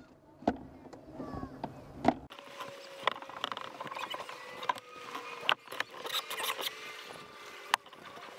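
Water lapping and trickling against a plastic kayak hull, with sharp clicks and knocks from the paddle and boat several times, and a faint steady hum from about two seconds in.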